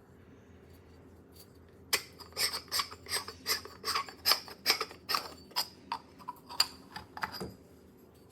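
A quick run of light, sharp clicks and taps of small hard objects, about three a second, starting about two seconds in and stopping shortly before the end.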